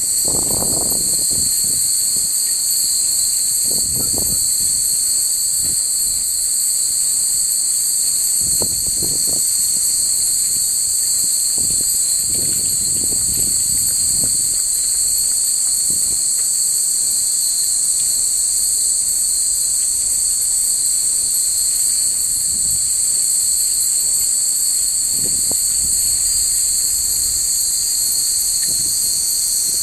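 Steady, high-pitched chorus of evening insects, with low rumbling swells coming and going underneath.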